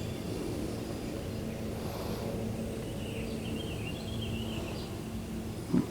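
Outdoor ambience: a steady low hum, with a bird chirping faintly in the middle, and a short thump near the end.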